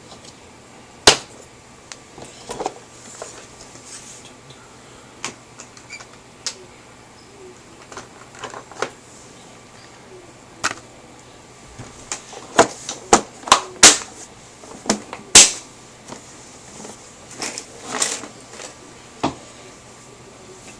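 Small painted plastic Gunpla model parts being handled and set down: sharp scattered clicks and rattles, with a quick run of louder clicks about two-thirds of the way through.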